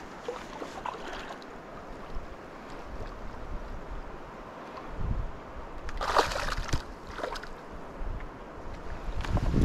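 A hooked bass splashing at the water's surface as it is played to the bank, in short bursts about six seconds in and again just before the end. A low rumble of wind on the microphone comes and goes under it.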